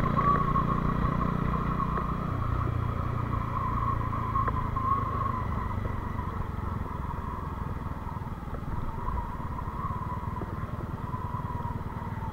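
Motorcycle engine running while riding, its note stepping down about two seconds in and growing quieter through the second half as the bike slows.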